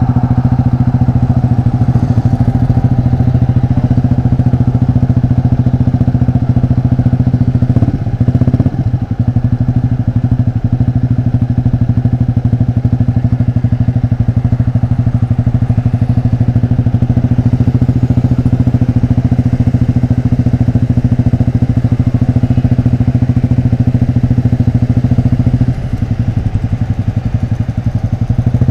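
Yamaha Fazer motorcycle with an open exhaust running steadily under throttle while riding. The engine note dips briefly about eight seconds in and again near the end as the throttle is eased off.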